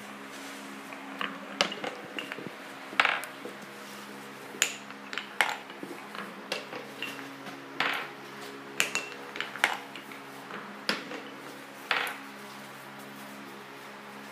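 Steel marbles running down a wooden Kapla-plank marble run, clicking and clacking irregularly against the wooden planks and against each other as they gather in the catch at the bottom.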